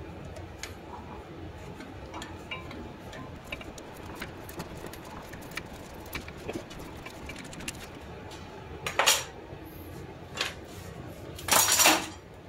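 Metal clicks and clinks of a screw clamp being wound against a brake caliper, pushing the caliper piston back with the old pad, with two louder metallic clanks near the end, the second one longer.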